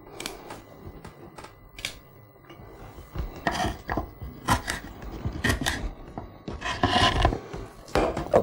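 Kitchen knife chopping green beans on a wooden cutting board: irregular knocks, a few faint ones at first, then louder and more frequent from about three seconds in.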